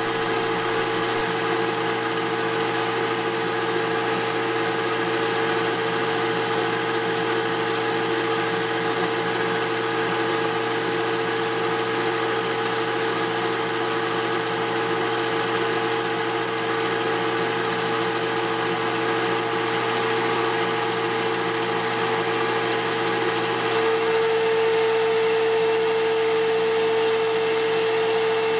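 Benchtop metal lathe running with a steady whine from its motor and drive. Near the end the tone gets louder and a higher tone joins in as the tool begins a heavy 1/8-inch-deep cut into the spinning metal bar.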